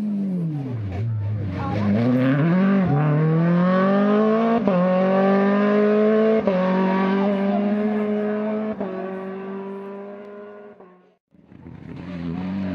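Rally car engine working hard: the note falls, then climbs as the car accelerates away, with three quick upshifts heard as sudden breaks in the rising pitch, before it fades out. Near the end a second rally car's engine starts up, its pitch rising.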